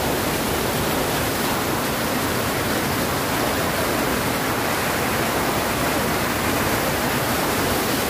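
Water from a brimming lake spilling over a long weir and rushing in a shallow sheet across the apron below: a steady, unbroken rush of falling and running water.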